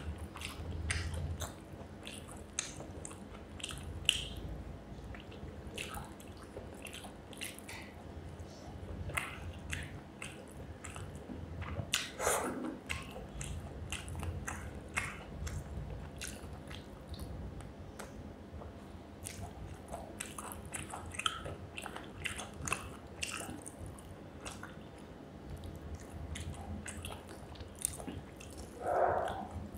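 Close-miked chewing and wet mouth sounds of someone eating rice with fish curry, with many small smacks and clicks over a steady low hum.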